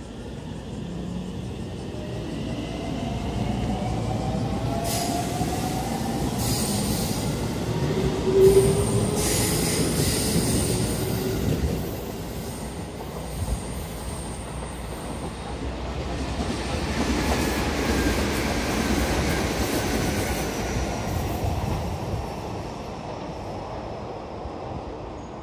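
A JR Central electric local train running alongside the platform, steel wheels on rail with high squealing and ringing tones. The sound builds over the first several seconds, dips about twelve seconds in, then swells again with a falling whine before fading near the end.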